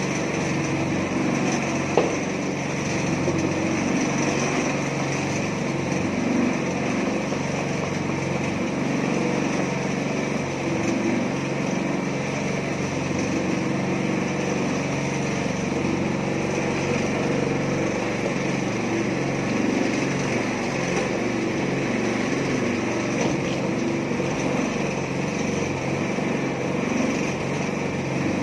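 Small petrol engine of a mini concrete mixer running steadily, with one sharp knock about two seconds in.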